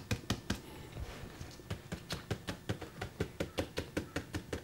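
Light, rapid tapping of two 3D-printed plastic molds full of freshly poured liquid plaster, about five quick taps a second, done to vibrate the plaster and let trapped air bubbles rise out.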